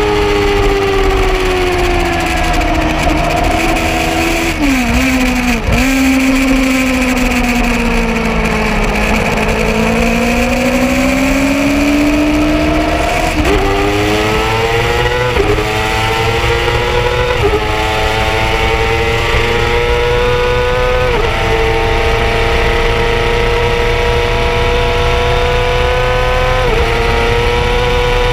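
Yamaha R6 sport bike's inline-four engine at track pace, heard from on board. The revs fall as it slows for a corner, with a brief dip and quick recovery about five seconds in. Then it accelerates hard out of the corner, shifting up four times (each shift a sudden drop in pitch before the revs climb again), over a steady rush of wind.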